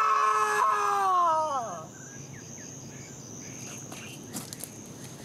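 A man's long, loud grieving shout, held on one pitch and falling away about a second and a half in. After it comes a steady, high insect drone with a few faint bird chirps.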